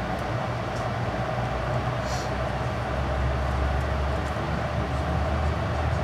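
Amtrak Pacific Surfliner train heard from inside a passenger car as it moves slowly out of a station: a steady low rumble and hum that strengthens a little in the second half, with a short hiss about two seconds in.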